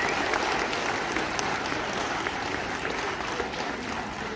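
Audience applauding at the end of a dance performance, the clapping gradually dying down toward the end.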